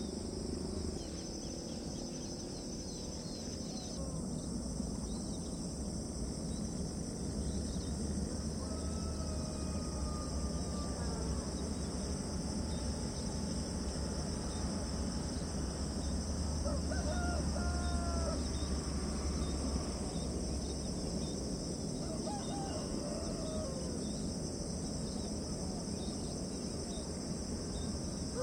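Insects chirring steadily in the rice fields while roosters crow a few times, about a third of the way in, past the middle and again later. A low rumble swells underneath through the middle.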